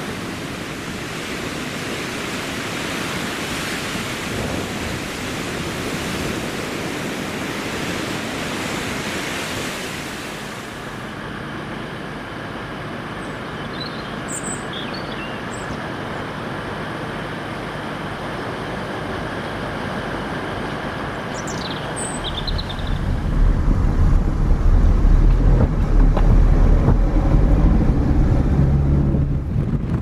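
Storm wind: a steady rush of gusting wind for about ten seconds, then a quieter stretch with a few brief chirps. Strong wind buffets the microphone in a heavy low rumble for the last several seconds.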